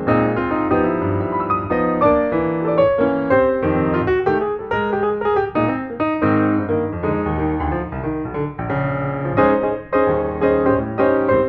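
Background piano music: a steady stream of quick notes played on a piano or electric piano.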